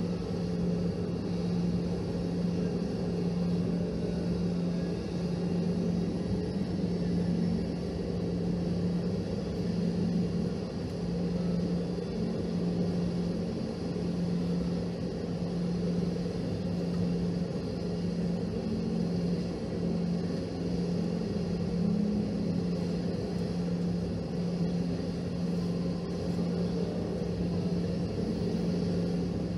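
Cabin noise inside a Boeing 717 on the ground, its rear-mounted Rolls-Royce BR715 turbofans at idle: a steady hum with a constant low drone and no change in engine power.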